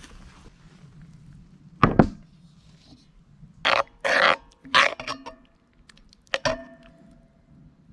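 Serving food at a campfire: a metal spoon or ladle knocking and scraping against cookware as the chili stew is dished up. A heavy thump comes about two seconds in, then a few wet scrapes, and a last knock near the end rings briefly like metal.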